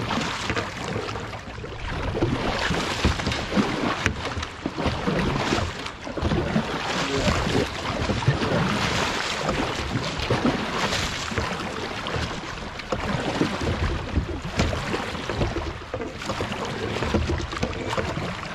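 Kayak paddle strokes splashing, with shallow river water rushing around the hull, as the kayak is paddled hard upstream through a rough, rocky riffle. The water noise is continuous and swells with each stroke.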